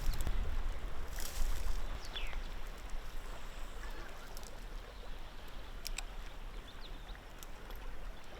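River water running, with a low wind rumble on the microphone that dies away over the first two seconds and a couple of small clicks about six seconds in.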